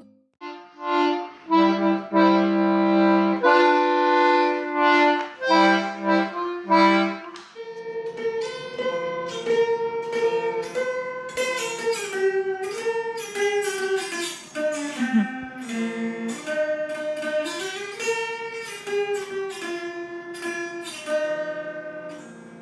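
Instrumental music played live: a few short held chords, then a slow melody of sustained notes over a held lower note, with a reedy, harmonica- or accordion-like tone.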